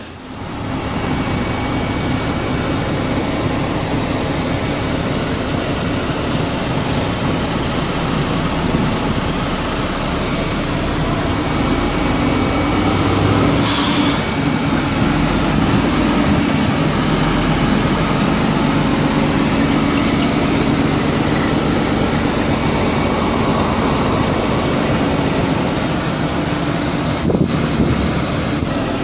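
Renault Premium 370 DXI truck's diesel engine running steadily, heard from inside the cab while the truck drives. About halfway through there is a short hiss.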